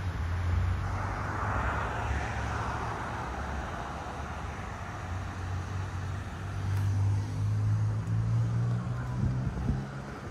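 Road traffic: cars passing on a street, a swell of tyre noise rising and fading about two seconds in, over a steady low hum that grows louder again near the end.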